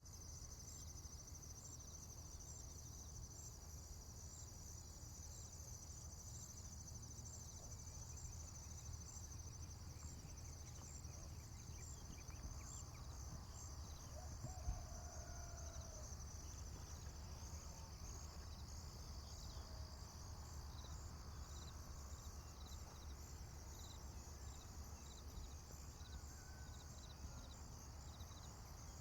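Faint farm ambience: insects chirping steadily in a high, pulsing chorus over a low rumble, with a few faint gliding animal calls and a single short knock about halfway through.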